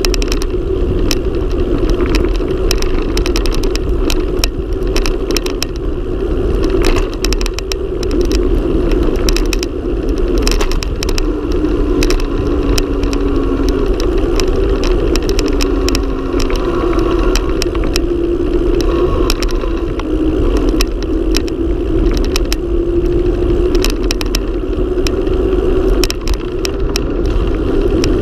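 Mountain bike coasting fast downhill on rough asphalt: steady wind rush on the mounted camera's microphone and tyre hum that wavers in pitch with speed, with frequent sharp clicks and rattles as the bike hits bumps and potholes.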